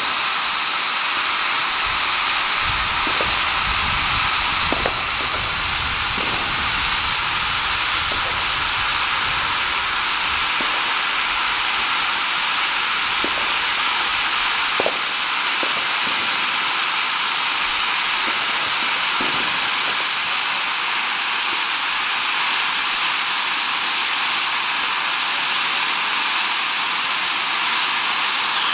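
Lesli Gold Conic 95-gram gold fountain firework burning with a loud, steady hiss of spraying sparks, without crackle.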